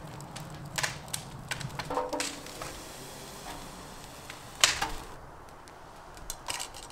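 Burning and handled firewood at a wood-fired clay tandoor: irregular sharp cracks and knocks, the loudest a little past halfway.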